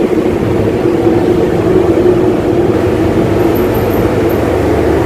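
A car ferry's engines running with a steady low drone and hum, heard from the vehicle deck.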